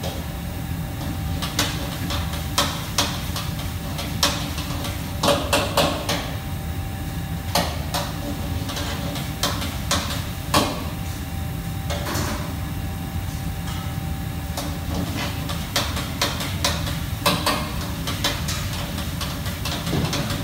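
Commercial kitchen clatter: irregular sharp knocks and clacks of pans, utensils and dishes being handled, over a steady low hum.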